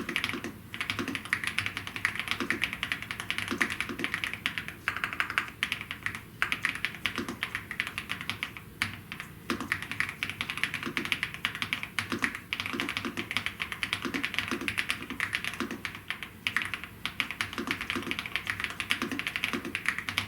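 Fast, continuous typing on a Gravastar K1 Pro mechanical keyboard: a dense run of key clicks with a few brief pauses.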